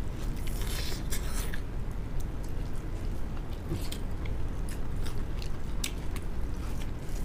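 Close-up eating sounds of people chewing and biting duck meat and rice eaten by hand, with many short wet clicks and smacks, over a steady low hum.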